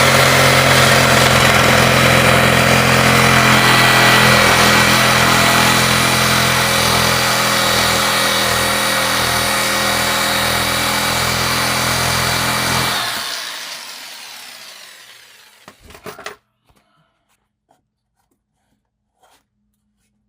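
Handheld power tool cutting out a board in the wall, its motor running steadily for about thirteen seconds, then winding down and stopping. A couple of sharp knocks follow, then near silence.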